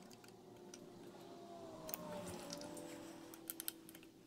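Quiet room with a few faint metallic clicks from a hex key tightening the ignition stator's bolts, over a faint steady hum with a few held tones.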